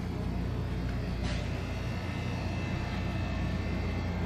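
Steady low hum and rumble of a shop's background noise, with a faint click about a second and a half in.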